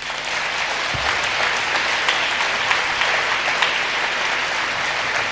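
A large audience applauding, the clapping starting abruptly and holding steady.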